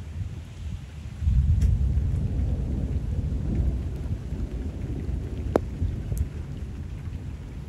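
Rolling thunder: a deep rumble that starts about a second in and slowly fades, over steady rain falling on the canal water. A single sharp tick about two-thirds of the way through.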